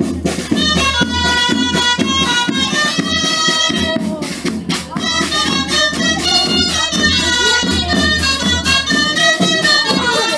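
Folk wind pipes and a snare drum playing a traditional tune: a bright, reedy melody over the drum's steady strokes.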